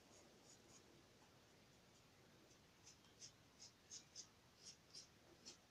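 Near silence, with faint short scratches from about three seconds in, a few a second: a small hand tool scraping excess wet cement away from a cement casting on a plastic sheet.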